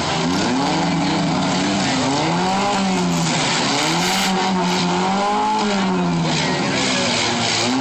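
Engines of demolition-derby vans and small trucks revving up and down. Several engine notes overlap, rising and falling in pitch again and again.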